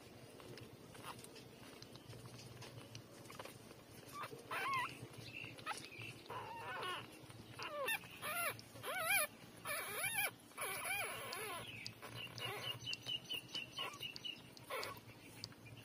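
Newborn puppies, about three days old, whimpering and squealing while nursing from their mother: short high whines that bend up and down in pitch, loudest around the middle, then a quick string of tiny squeaks near the end.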